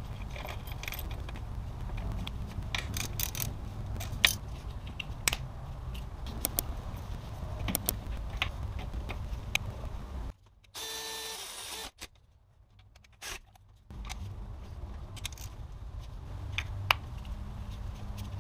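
Small clicks, taps and scrapes of gloved hands working a drive belt over the tensioner and pulleys at the front of a BMW M54 straight-six, over a steady low hum. About ten seconds in the background drops out for a few seconds and a short chime sounds.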